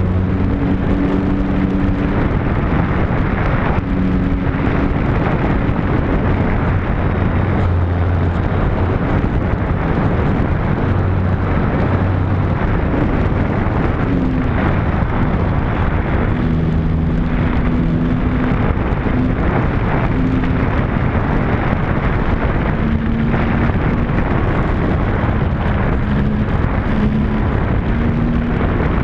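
Heavy wind buffeting a small action camera's microphone on a flying radio-controlled model Spitfire, a loud steady roar throughout. Under it the model's motor and propeller tone holds low and jumps to new pitches every second or two as the throttle changes.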